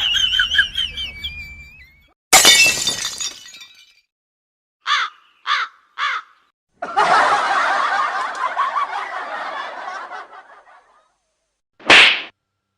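A string of separate short comedy sound effects with silent gaps between them: a wavering tone fading out, a sudden loud burst about two seconds in, three short quick blips, a noisy stretch lasting a few seconds, and one short burst near the end.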